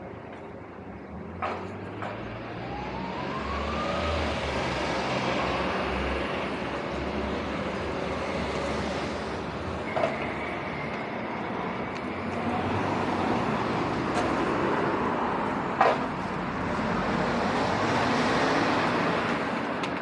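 Street traffic noise: motor vehicles passing close by, building over the first few seconds and holding steady. A rising whine comes a few seconds in, and there are three sharp knocks.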